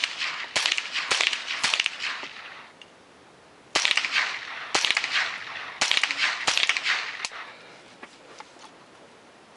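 A string of about ten gunshots, each with a short ringing tail: five in quick succession, a pause of almost two seconds, then five more spaced about a second apart.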